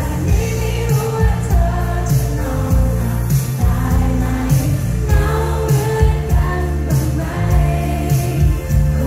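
Live pop band playing: a woman singing lead over electric guitar, bass and drums with a steady beat, loud in a large hall.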